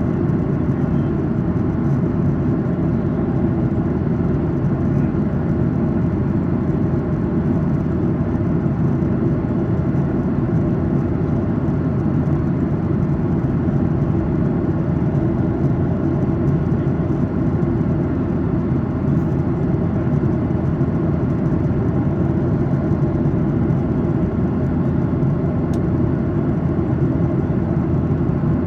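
Steady cabin noise of a Boeing 737-800 in cruise: the drone of its CFM56-7B engines and the rush of air over the fuselage, a low, unchanging rumble with a faint hum above it.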